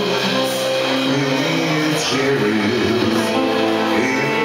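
Live rockabilly band playing: a lead singer over electric guitar and saxophone, the music loud and unbroken.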